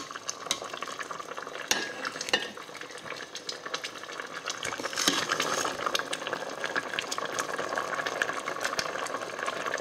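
A metal ladle scraping and knocking against a stainless steel pot, with broth sloshing, as boiled corn cobs in coconut broth are ladled out; several sharp knocks stand out over the steady handling noise.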